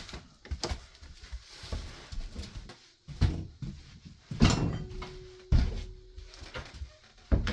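Irregular knocks and thuds of wood being handled and set down on a subfloor, with a brief steady squeak about halfway through.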